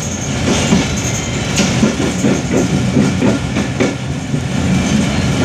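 Passenger train running along the rails, with a steady low rumble and the wheels clacking over rail joints several times through the middle.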